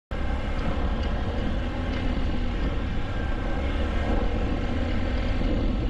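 Motorbike engine running steadily at cruising speed, with heavy wind rumble on the microphone as it rides along.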